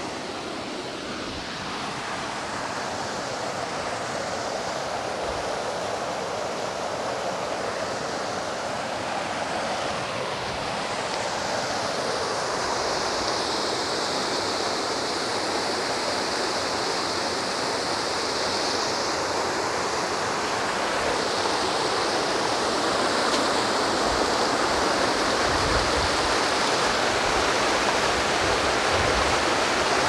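Rushing water of a forest stream and waterfall: a steady hiss that grows gradually louder, with a few low thumps near the end.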